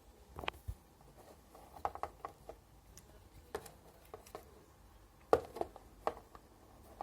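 Irregular light clicks and knocks of small hard objects being handled, the loudest about five seconds in.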